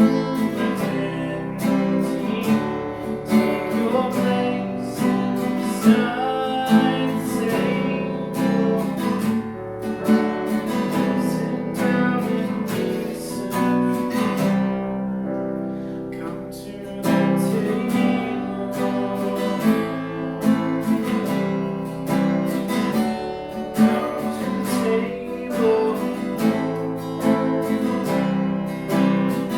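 Worship music led on an acoustic guitar, chords strummed in a steady rhythm, thinning out briefly about halfway through.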